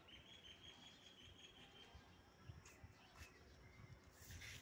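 Faint bird trill: a rapid, even run of high notes lasting about two seconds. A brief hiss-like rustle comes near the end.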